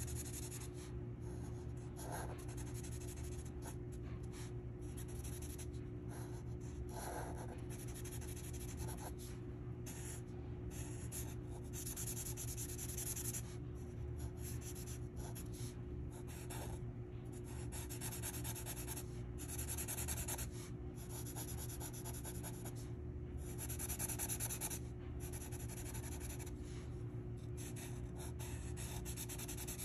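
Felt-tip Sharpie fine-point marker scratching across paper in quick repeated strokes with short pauses, colouring in a page, over a steady low background hum.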